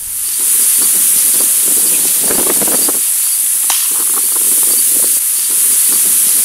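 Loud, steady high-pitched insect chorus with a faint pulsing chirp under it. Rustling and a sharp click come through it, from movement in a tree stand among the branches.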